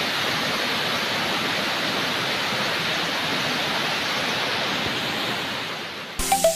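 Steady rushing of a waterfall and falling water. About six seconds in, it gives way to electronic dance music that starts abruptly.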